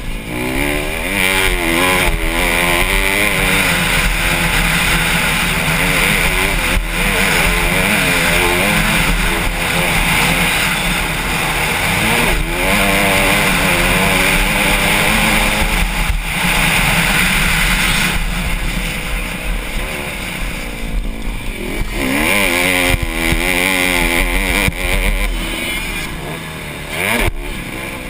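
Honda CRF150R's four-stroke single-cylinder engine under race throttle, heard from the rider's helmet. The pitch climbs and falls over and over with gear changes, and the note drops briefly every few seconds as the throttle is chopped.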